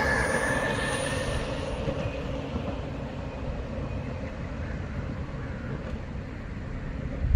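BKB Duo belt-drive electric skateboard rolling on pavement: a steady low wheel rumble with a faint motor whine, growing quieter over the first few seconds.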